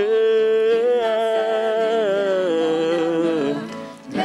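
A voice holds one long sung note over a sustained electric keyboard accompaniment in a gospel worship song. The note dips slightly and fades out about three and a half seconds in.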